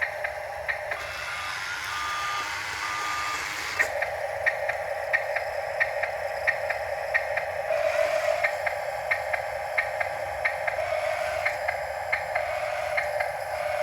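Small electric motor and gearing of a radio-controlled construction model running with a steady whine. A regular ticking goes on throughout, about one and a half ticks a second, and two short beeps sound about two and three seconds in.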